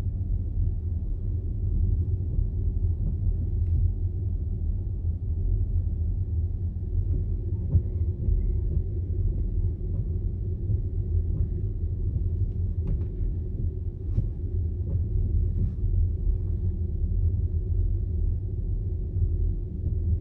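Steady low rumble of tyre and road noise from an Audi Q4 e-tron electric car driving on a snowy road, heard inside the cabin, with a few faint scattered ticks.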